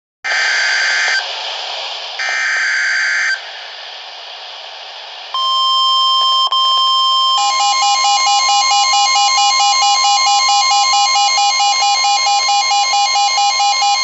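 A Midland S.A.M.E. weather alert radio receiving a NOAA Weather Radio tornado warning. Two short buzzy bursts of the SAME digital alert header over radio hiss come first. About five seconds in comes the steady 1050 Hz warning tone, and about seven seconds in the radio's own rapid alarm beeping starts on top of that tone.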